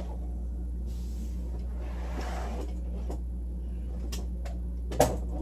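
Steady low hum with a faint click about four seconds in and a short, sharp knock about five seconds in.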